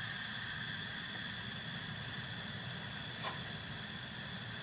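Gas stove burner running with a steady hiss under a frying pan of heating oil, with a faint tick about three seconds in.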